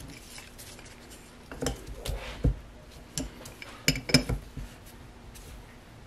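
Metal tools and parts clinking and knocking while a Mercedes ABC suspension valve block is taken apart: a handful of sharp clicks and knocks, the loudest around four seconds in, with light scraping between.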